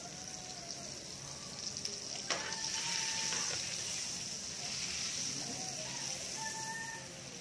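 Butter sizzling as it melts in a hot pan and is pushed around with metal tongs. There is a single sharp click about two seconds in, and the sizzle grows a little louder after it.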